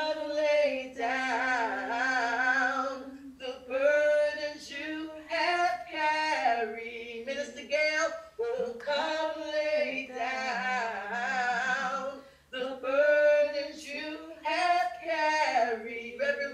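A woman singing a hymn unaccompanied, in slow phrases of long held notes with vibrato.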